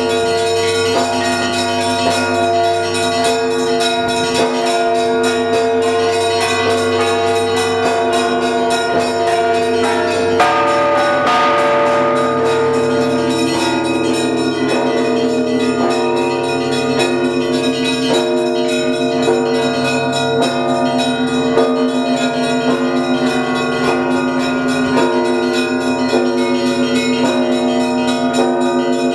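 Russian Orthodox church bells of the Trinity-Sergius Lavra rung together in a continuous festive Paschal peal calling to the evening service. Many small bells are struck in quick succession over the steady ring of deeper bells, with a louder stroke about ten seconds in whose ring spreads out.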